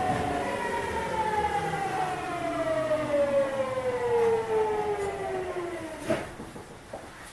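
Seibu 6000 series GTO-VVVF inverter whine sliding steadily down in pitch as the train brakes into a station, cutting out with a clunk about six seconds in.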